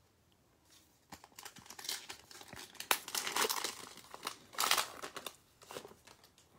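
Foil wrapper of a Panini Prizm basketball retail card pack torn open and crinkled by hand, starting about a second in, loudest about three seconds in and again near five seconds.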